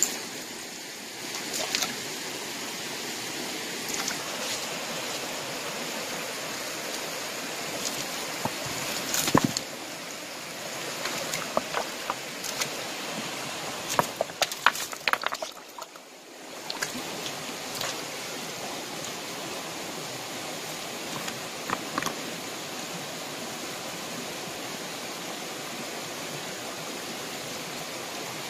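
Steady rush of a shallow rocky stream, with scattered clicks and clacks of stones and pebbles being shifted by hand, busiest around the middle.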